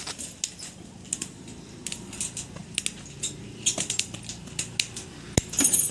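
Metal wire mesh for a tractor's front grille being cut with a hand cutting tool: irregular sharp snips and metallic clinks, with a quick cluster of jingling near the end.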